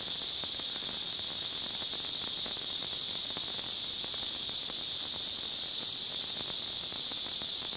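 Steady, high-pitched chorus of summer insects, unbroken and unchanging.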